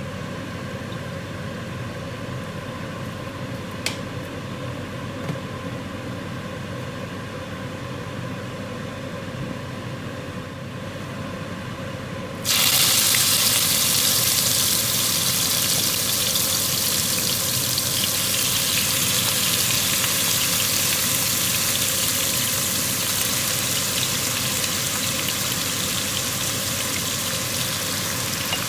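A steady low background hum, then suddenly, about halfway through, a loud, even sizzle starts as ingredients hit hot oil in a pan, and the frying keeps going.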